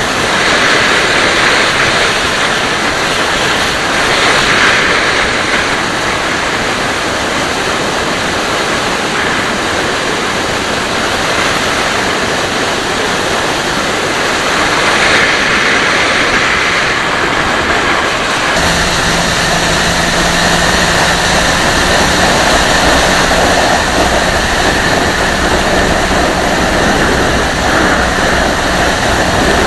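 Steady rush of wind over the microphone of a motorcycle riding at road speed, with its engine running underneath. About two-thirds of the way in the sound changes abruptly and a steady low engine hum comes through more clearly.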